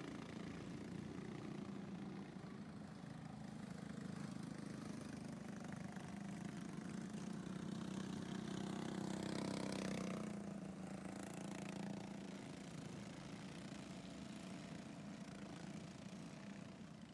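Small engines of junior sprint cars running as they lap a dirt track at a distance, a steady hum. One car comes nearer about eight to ten seconds in, its engine getting louder and rising in pitch before fading as it moves off.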